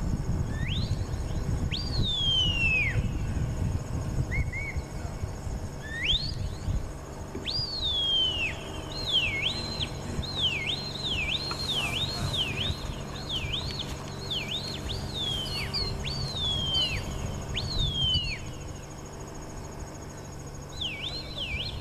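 Herding whistle commands from a border collie handler working cattle, a long series of sharp whistles. Some rise quickly and then sweep down, and a run of quick up-and-down chirps comes in the middle. Under them runs a low, uneven rumble.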